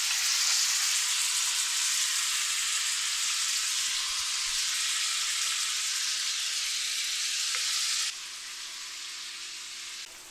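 Ground-beef patties and chopped onions sizzling steadily in rendered beef fat in a cast iron skillet. About eight seconds in, the sizzle drops suddenly to a quieter level.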